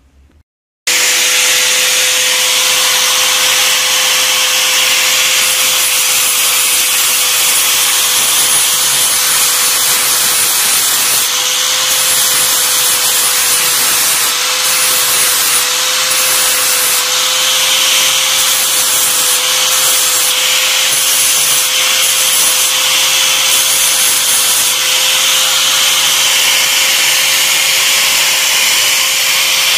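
Handheld angle grinder running at speed with its disc grinding against thin steel sheet, throwing sparks: a steady whine over a harsh hiss, starting abruptly about a second in. It is grinding hardened plasma-cutting dross and rust off the underside of a rusty steel cutout that was not treated with acid, where the dross is stubborn.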